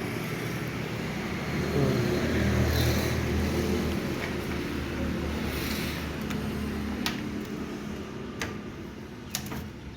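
Low engine rumble, like a vehicle running, swelling about two seconds in and fading towards the end, with a few light metallic clicks in the last few seconds.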